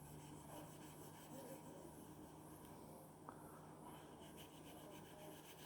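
Faint rubbing of a stainless steel broadhead blade stroked across fine 1500-grit wet-and-dry sandpaper, over a faint steady low hum.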